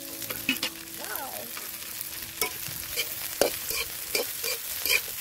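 Shredded cabbage and carrots sizzling in hot oil in a kadhai, stirred with a spatula that scrapes and clicks against the pan several times.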